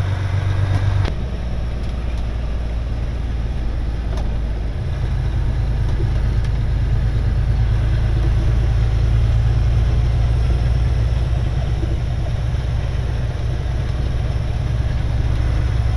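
Truck engine running steadily while driving, with road noise. The low engine note changes about a second in and again near five seconds.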